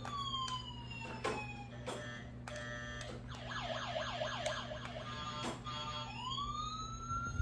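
Toy RC car's electronic siren sound effects: a falling wail, then a fast warbling stretch a few seconds in, then a rising wail near the end.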